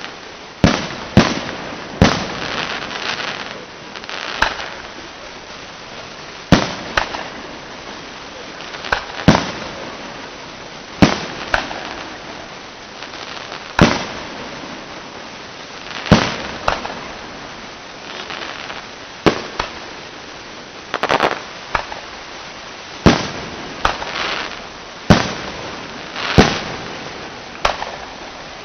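Aerial firework shells bursting overhead, a sharp bang every one to three seconds, some in quick pairs, a few followed by a brief crackling fizz.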